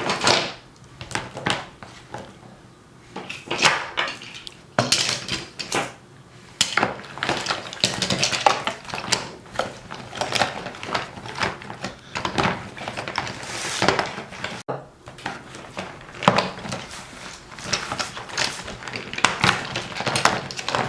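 Hands squishing and stirring through paint-streaked shaving cream in a bucket, with toy trains and dinosaurs knocking and clattering in irregular bursts.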